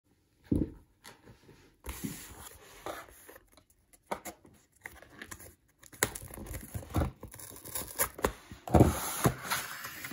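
Hands handling a corrugated cardboard shipping box: irregular taps, knocks and scraping or tearing rustles of the cardboard, with the loudest knock about nine seconds in.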